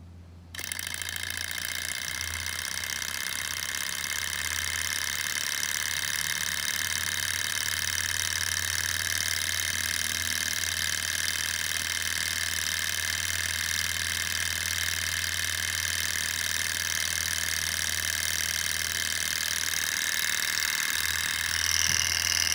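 Small model Stirling hot-air engine starting as its flywheel is flicked by hand, then running at speed with a steady, high-pitched mechanical whir and rattle that grows slowly louder.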